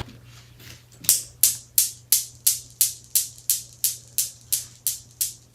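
An even percussion rhythm of short, sharp hissing strokes, about three a second, like a shaker, starting about a second in over a faint steady low hum.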